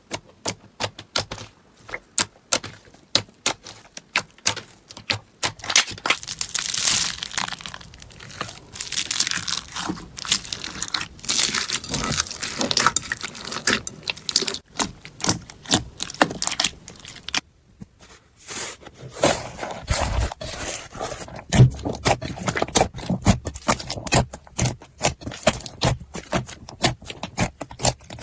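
Crunchy slime being pressed and squished by hand, giving dense runs of sharp crackling and popping clicks. The sound breaks off briefly about two-thirds of the way through, then the crackling starts again.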